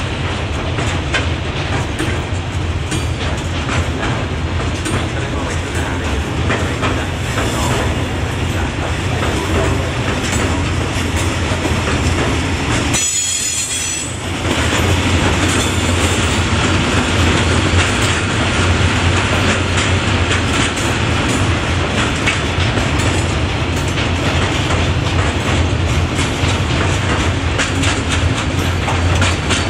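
Long freight train of hopper wagons rolling through the station, a continuous loud rumble of wheels on the rails with a brief dip about thirteen seconds in.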